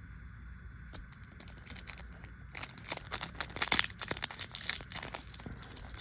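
Crinkling and crackling of a plastic trading-card pack wrapper being handled, starting about two and a half seconds in after a quieter stretch.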